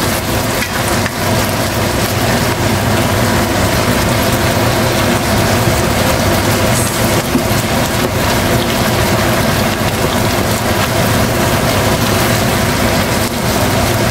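Chicken livers and gizzards in adobo sauce sizzling and bubbling in a nonstick frying pan, stirred now and then with a spatula, over a steady hum.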